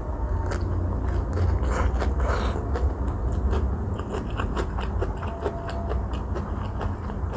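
Close-miked chewing of a fresh rice-paper spring roll filled with shrimp, crab stick, cucumber, carrot and lettuce: wet mouth sounds with many small sharp clicks, thickest in the second half.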